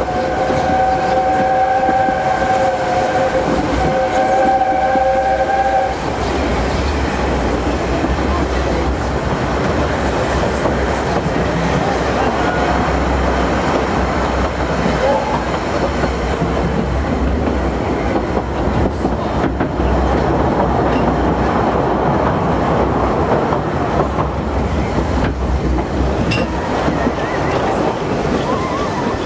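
Narrow-gauge train's whistle sounding a held chord for about six seconds. It is followed by the steady rumble of the train running along the track.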